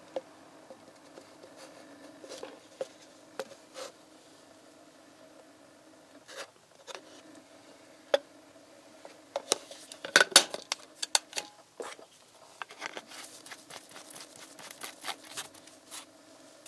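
Handling noises from gloved hands working a plastic oil bottle and a plastic measuring jug: scattered clicks and knocks, with a cluster of louder clatters about ten seconds in and a run of small taps near the end, over a faint steady hum.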